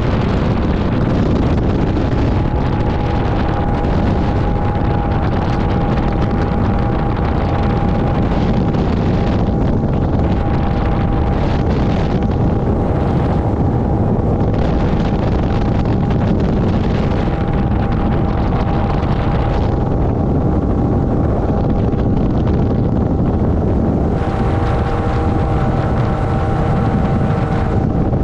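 Small motorboat's engine running steadily under way, with a constant drone and a steady whine, and wind buffeting the microphone.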